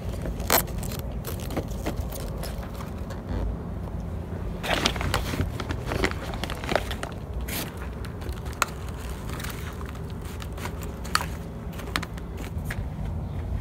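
Plastic potting-mix bag crinkling and crackling as it is handled, in irregular bursts that are thickest about five to seven seconds in, with a few scrapes, over a steady low background rumble.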